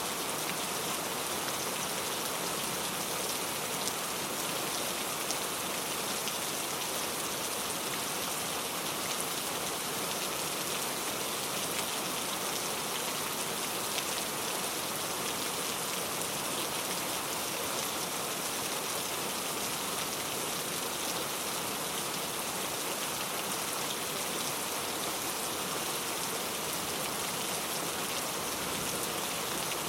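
Steady rain: an even hiss of many small drops falling on a surface, unchanging in strength.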